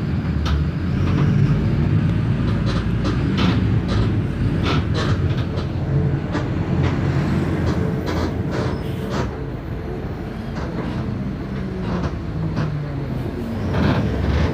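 Mercedes-Benz OF 1519 city bus with its four-cylinder diesel engine running, a steady low drone with frequent rattles and clicks from the Marcopolo Torino body. The engine eases off a little past halfway and builds again near the end.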